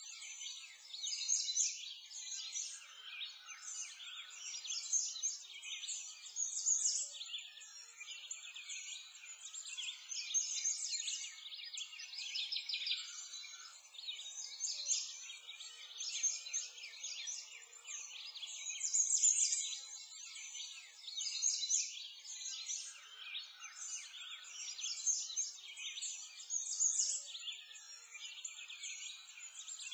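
Many songbirds chirping in a dense, continuous chorus, all high-pitched, swelling and fading every few seconds.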